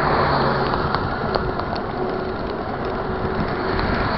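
Steady rushing noise of a mountain bike ridden through heavy rain on a wet road: wind and rain on the microphone mixed with tyre noise, with scattered small ticks.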